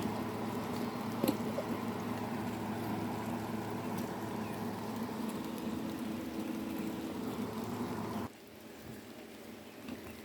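Steady rain falling, with scattered drips and a low steady hum underneath; the sound drops off suddenly about eight seconds in.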